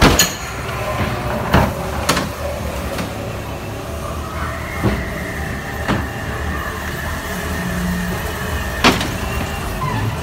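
Dark-ride car rolling along its track with a steady low rumble, banging through swinging wooden doors with a sharp knock at the start and a few more knocks along the way. A thin whine holds for a few seconds in the middle.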